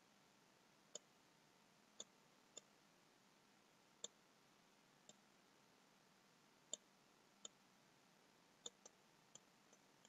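Near silence broken by faint, irregular clicks, about a dozen in ten seconds: the clicks of a computer input device, a mouse or tablet pen, at work while sculpting.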